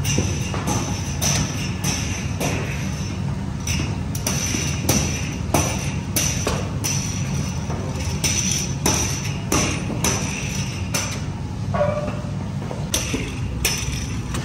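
Rolling pins knocking and clattering against floured worktables as several bakers roll out flatbread dough: irregular sharp knocks, sometimes two or three close together, over a steady low hum of bakery machinery.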